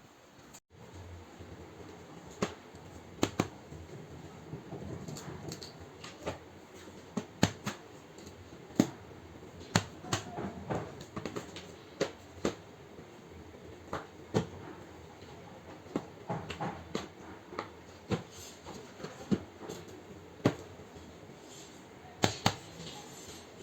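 Irregular sharp clicks and taps, about one a second, over a low rustle, as of hands handling small objects close to the microphone.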